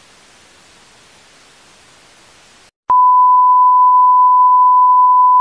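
Faint static hiss, then after a brief break, about three seconds in, a loud steady test tone at one pitch: the reference tone of a television bars-and-tone signal.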